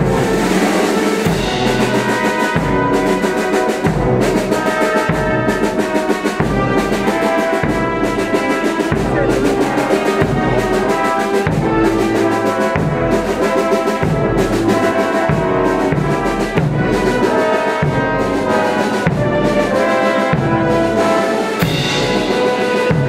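Brass band with drums playing a processional march, held brass chords over a steady, regular drumbeat.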